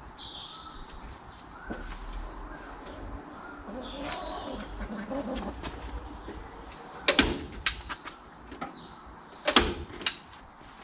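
Staple gun fired twice, about two and a half seconds apart, each a sharp loud snap followed by a few smaller clicks. Faint chirping bird calls come in the first half.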